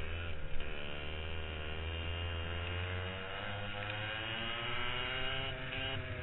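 Racing kart's two-stroke engine on board: the revs fall away to a low point about halfway through, then climb again as the kart accelerates out of the corner. A steady low drone runs underneath.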